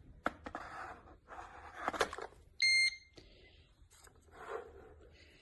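Chefman electric kettle being handled and set on its base with clicks and clunks, then its base gives one loud electronic beep of about half a second, the signal that the kettle has been placed on the base.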